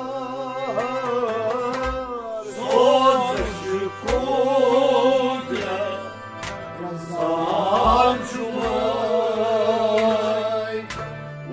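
Harmonium holding steady drone chords while a man sings a slow, ornamented devotional melody over it, with low drum strokes now and then.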